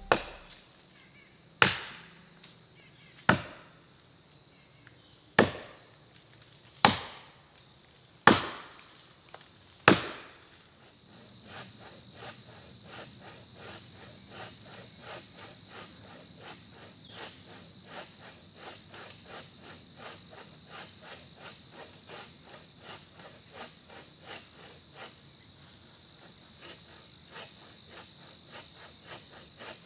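Axe chopping into a dead standing tree being felled: seven sharp, loud strikes about a second and a half apart. After them, a much quieter, faster rhythm of strokes, about two a second, under a steady high insect trill.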